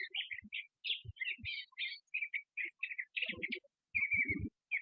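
Small birds chirping: a quick run of short, high notes, with a few low thumps in the second half.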